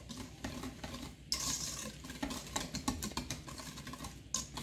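Wire whisk beating wet pumpkin purée and sugar in a stainless steel bowl, its wires ticking and scraping against the metal in quick, irregular strokes.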